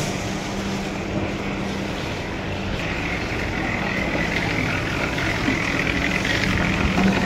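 A steady engine drone with a low, even hum, joined about three seconds in by a higher hiss that grows slightly louder.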